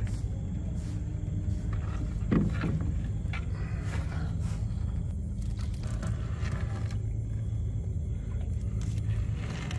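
A small engine running steadily, a low even hum, under light rustling and knocks of a nylon gill net being hauled hand over hand into a small boat.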